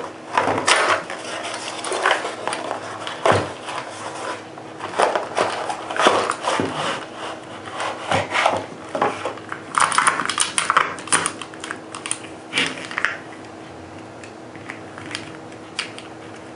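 Handling noise of a cardboard ammunition box being opened and its plastic cartridge tray slid out and moved about: scraping, rubbing and a run of clicks, with light clinks from the brass 7mm Weatherby Magnum cartridges, busiest a little past the middle.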